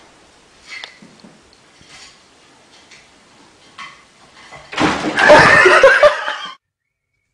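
Faint small knocks, then about five seconds in a sudden loud burst of people laughing as a cat falls from a chair back to the floor; the laughter cuts off abruptly.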